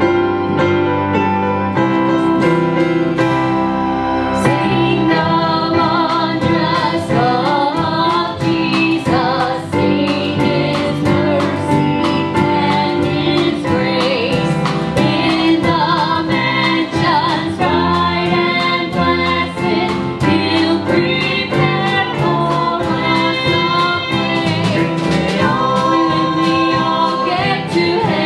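A live worship band plays a worship song: keyboard alone at first, then voices come in about four seconds in, with guitars and a drum kit keeping a steady beat.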